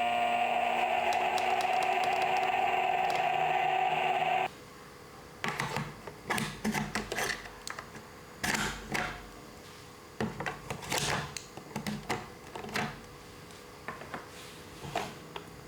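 Plastic duck toy toaster being played with: a steady electronic tone that cuts off about four and a half seconds in, then irregular plastic clicks and clacks from its knob, button and toast.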